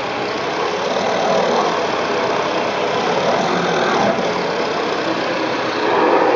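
Philips Performer Active bagged cylinder vacuum cleaner running steadily with its turbo brush head on carpet, sucking up loose hay, straw, fur and food bits; the rushing noise swells a little a few times.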